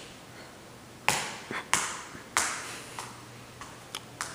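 A series of about eight sharp taps or knocks, irregularly spaced, each with a short ringing tail, over a quiet background.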